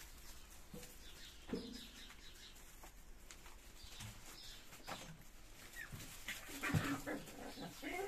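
Eight-week-old puppies playing, with a few short yips and whines, growing busier and louder with scuffling near the end.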